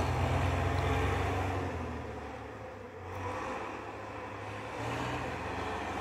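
Snow-clearing tractor's engine running, a low steady rumble that fades a little about halfway through and picks up again.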